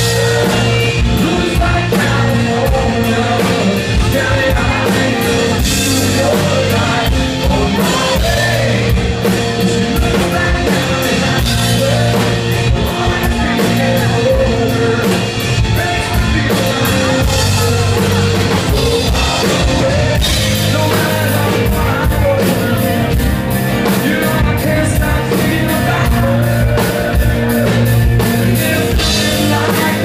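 Live country-rock band playing a song, with a male lead singer over acoustic guitar and a steady drum beat.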